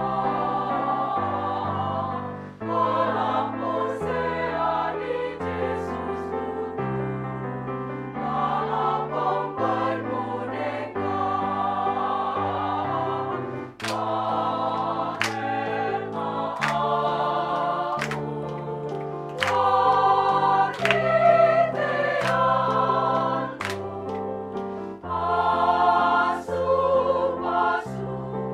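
Women's choir singing in harmony over an accompaniment of held bass notes. From about halfway, sharp hand claps mark the beat about every second and a half.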